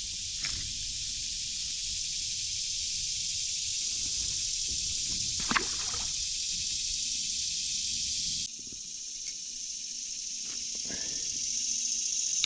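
Steady hiss of a creek's flowing water, with one short sharp sound about five and a half seconds in. The low rumble underneath drops out abruptly a little past eight seconds.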